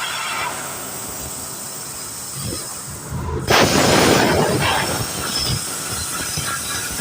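CNC laser cutting machine running on aluminium, a steady hiss and rumble; a louder rush of hiss starts about three and a half seconds in and lasts about a second.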